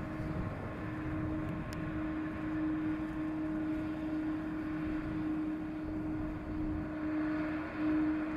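Boeing 777's twin jet engines at taxi power: a steady hum with a held droning tone, swelling slightly near the end.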